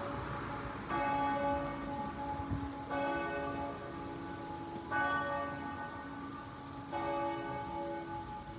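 A bell tolling slowly, struck four times about two seconds apart, each stroke ringing on into the next.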